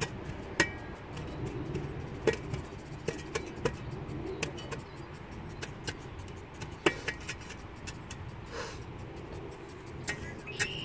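Irregular sharp clicks and knocks of bricks being handled and set into a pea-gravel base, over a steady low background.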